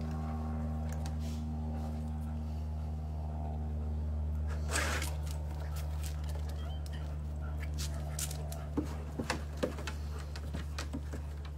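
A steady low hum runs throughout, with a short scuffing noise about five seconds in and a few sharp clicks and taps near the end.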